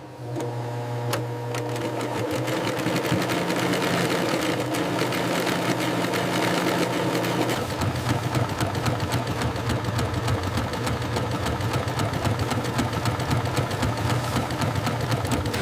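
A small machine running with a fast, even clatter over a steady hum. The hum's pitch changes about halfway through.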